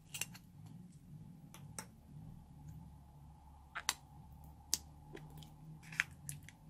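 Thin clear plastic slime container crackling as it is squeezed and peeled off the slime inside, giving a handful of sharp, separate clicks over a faint low hum.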